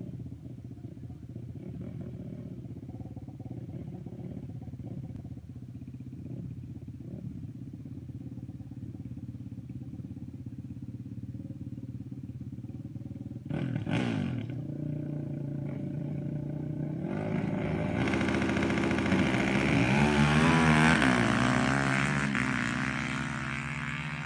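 Sport quad ATVs idling at the start line. About halfway in comes a sharp rev, and a few seconds later the engines open up hard in a drag launch, revving high with the pitch climbing and dropping. The sound fades as the quads pull away down the strip.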